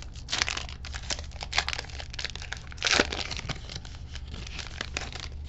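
Foil wrapper of a Panini Mosaic trading-card pack crinkling in the fingers as it is torn open. It makes an irregular run of crackles, with the loudest rip about three seconds in.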